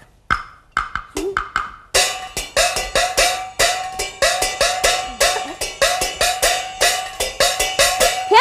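Chinese opera-style percussion accompanying a stage walk: metal gong and clapper strokes. A few scattered strikes give way, about two seconds in, to a quick, even beat of about three ringing strokes a second.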